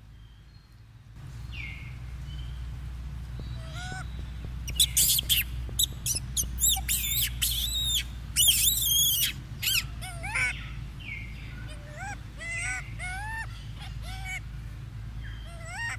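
Rhesus macaque calls: a run of shrill, squeaky calls that sweep up and down in pitch, loudest and thickest about halfway through, then a string of shorter rising-and-falling squeaks.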